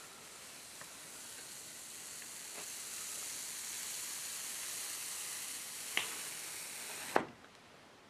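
A sheet of printing paper being slowly peeled off an inked woodblock, the tacky ink letting go with a steady crackling hiss that grows louder as the peel goes on. Two sharp clicks near the end, and the hiss stops suddenly with the second.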